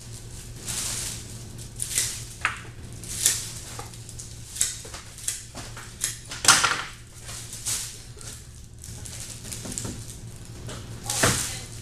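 Bunches of carnation stems being cut by hand and handled: an irregular run of short crisp snips and rustles, the loudest about halfway through and near the end, over a steady low hum.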